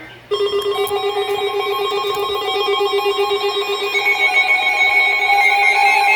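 Emergency Alert System two-tone attention signal: a loud, harsh steady tone that starts abruptly about a third of a second in and holds, announcing an incoming alert.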